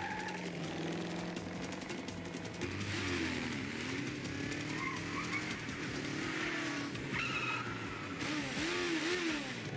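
A classic muscle car and a motorcycle racing around at close range, their engines revving up and down repeatedly, with brief tire squeals about seven seconds in.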